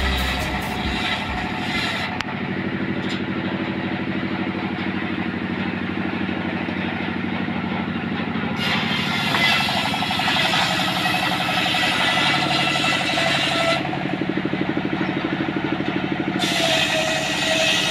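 Engine-driven circular sawmill running steadily after background music fades out in the first couple of seconds. Harsher, brighter noise joins in about halfway through and again near the end, as the big blade rips through trembesi timber.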